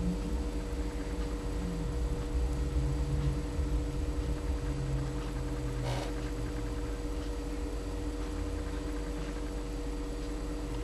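Steady background hum with a low rumble, and a single short click about six seconds in.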